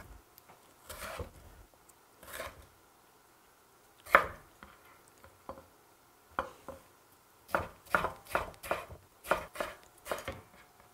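Chef's knife chopping ponytail radish (chonggak) kimchi on a wooden cutting board: a few separate cuts at first, then a quicker run of chops, about two or three a second, from about six seconds in.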